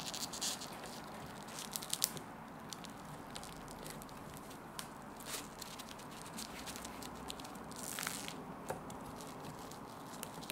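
Bamboo sushi mat being handled as a thin sushi roll is rolled in it: the slats click and rustle against the wooden board in scattered small clicks, with a louder brief rustle late on as the mat is pressed round the roll.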